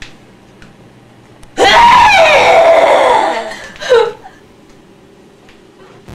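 A woman screams: one long, very loud, high scream falling in pitch, then a second short cry about a second later.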